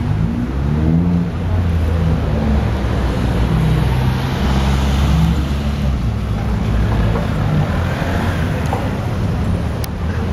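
A motor vehicle's engine running close by, its low pitch drifting up and down a little.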